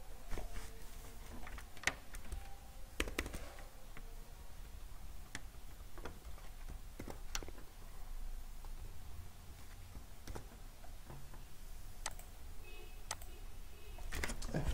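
Computer keyboard keystrokes and clicks, separate and irregularly spaced, as code is typed and edited, over a faint low hum.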